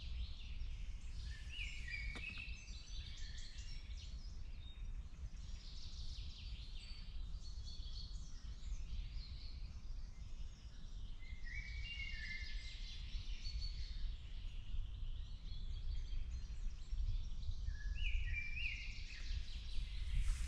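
Several songbirds singing and chirping in a leafy woodland, with short phrases repeated now and then, over a low steady background rumble.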